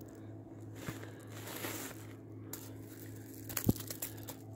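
A small perch flapping on a shingle beach as it is handled, the pebbles crunching and clicking under it. There are a few sharper clacks of stone near the end.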